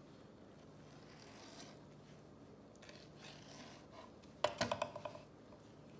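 Quiet rubbing and scraping of hands and a knife working soft rehydrated dried chili peppers, over a low steady hum. About four and a half seconds in comes a quick run of sharp clicks, the loudest sound.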